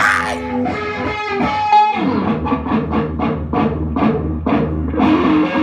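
Music: a guitar-led instrumental passage with drums, the guitar strummed in a steady beat from about two seconds in.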